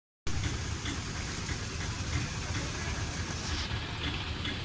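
Steady low rumble of idling vehicles and traffic, an even background hum with no distinct events.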